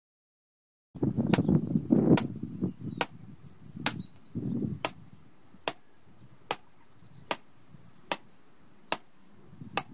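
A hammer strikes the top of a grounding rod to drive it into wet ground. There are about eleven sharp metallic knocks at a steady pace of a little more than one a second, beginning about a second in. The first few come over a low rustle of movement.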